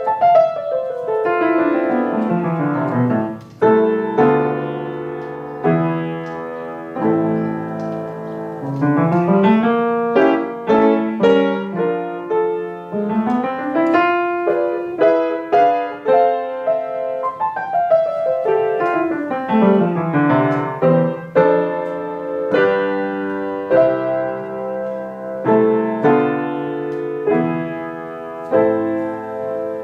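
Solo piano playing a melody over chords, with sweeping runs of notes: one falling at the start, rising runs around the middle, and another falling run about two-thirds through.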